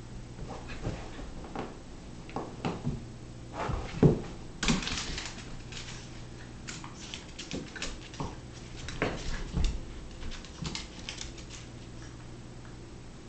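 A Doberman pinscher puppy and a small scotchipoo puppy play-fighting: irregular scuffling, bumps and claws clicking and pattering on a hardwood floor. The loudest knocks come about four to five seconds in.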